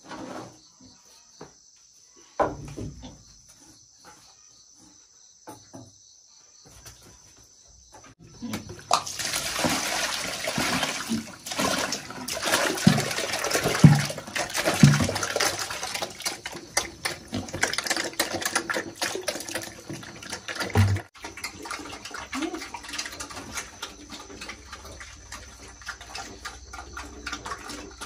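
Bucket of wet pig feed poured into a metal feeding basin, splashing loudly from about eight seconds in until about twenty-one seconds, with a few low thuds along the way. After that come quieter wet noises as the piglets eat from the basin.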